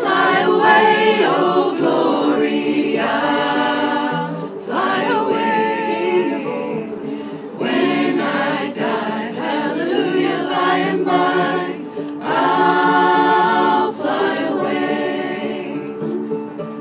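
A small group of men and women singing a hymn together unaccompanied, phrase by phrase with short breaths between lines.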